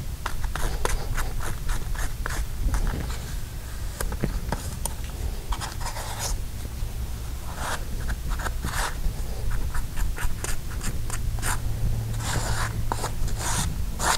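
Putty knife scraping and smearing Bondo body filler on a piece of cardboard in quick, irregular strokes, as the filler is worked together with its hardener until thoroughly mixed.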